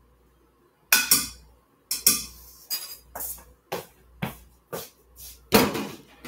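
Dishes and kitchen utensils being handled and set down: a run of about ten sharp clinks and knocks, starting about a second in, one with a brief ring.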